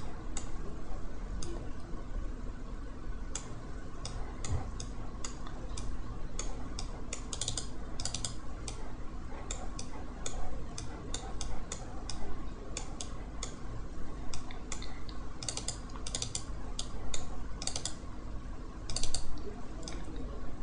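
Computer mouse clicking and its scroll wheel ticking while zooming in a genome browser. Single clicks alternate with short runs of rapid clicks over a faint steady hum.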